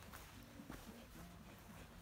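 Near silence, with a few faint footsteps on dry grass.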